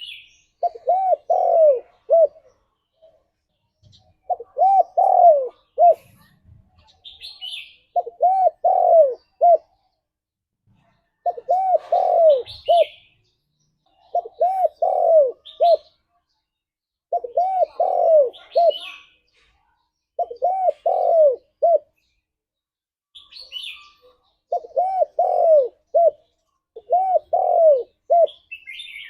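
Spotted dove (tekukur) cooing: nine repeated phrases of three or four rounded notes, about one every three seconds. Short high chirps from a small bird fall between the phrases.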